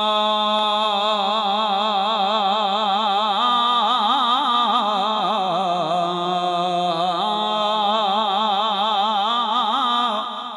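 A man chanting a long, wordless melismatic passage in the style of Punjabi Sufi verse recitation, his voice wavering in wide, fast vibrato over a steady low note. It breaks off near the end.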